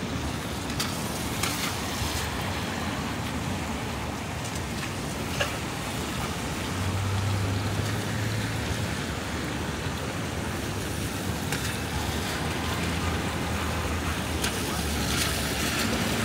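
City street traffic on rain-wet roads: a steady hiss of tyres and engines, with a low engine hum coming up for a couple of seconds near the middle.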